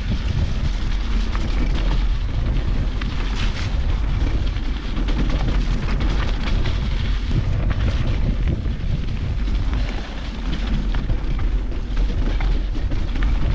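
Wind buffeting a handlebar-mounted GoPro during a mountain-bike descent: a steady low rumble, with frequent small clicks and rattles from the bike running over rough trail.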